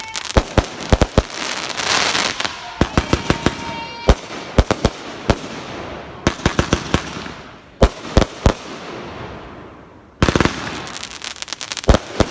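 A 30-shot aerial firework cake firing in rapid volleys: clusters of sharp launch reports and shell breaks, with crackling between them from the brocade, strobe and time-rain effects. A short lull near the end is followed by another dense volley.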